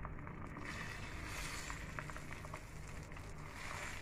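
Beaten egg frying in a thin layer of oil in a nonstick pan: a faint sizzle with scattered small crackles over a low steady hum.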